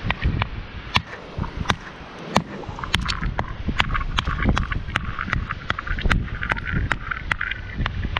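Geological hammer striking a hard pyritic nodule again and again to split it: over a dozen sharp, irregular knocks of rock on steel. Wind rumbles on the microphone underneath.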